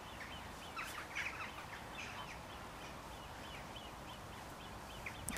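Faint bird calls in the background, a scattered run of short chirps over a light hiss.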